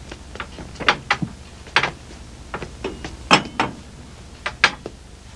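Dishes and utensils clattering: about a dozen irregular knocks and clinks, one of them ringing briefly, the loudest a little past the middle.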